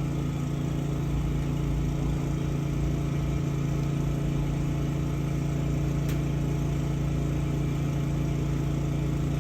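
Sewer water jetter's engine running steadily at a constant pitch while the line is being power-jetted, with a faint click about six seconds in.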